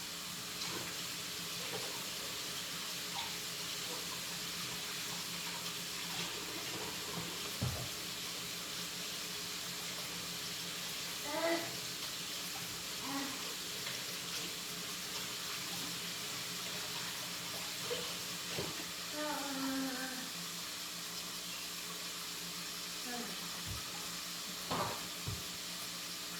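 Kitchen sink tap running steadily while hands are washed under it, with a few brief faint vocal sounds over the water.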